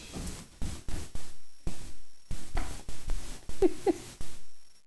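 Irregular thumps and scuffles of a young kitten flipping and rolling over on the floor while fighting his first collar, with two short rising voice sounds a little after three and a half seconds.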